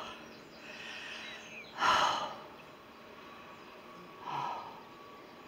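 A tired hiker breathing out heavily: one strong sighing exhale about two seconds in and a softer one near the end. It is the breathlessness of being worn out from walking in the heat.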